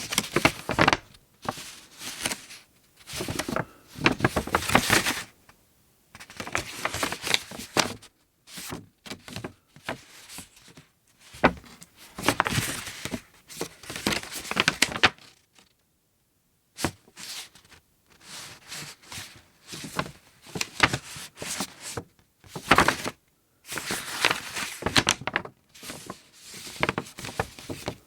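Thick paper being handled: irregular rustles, crinkles and scrapes in short bursts with brief pauses between them.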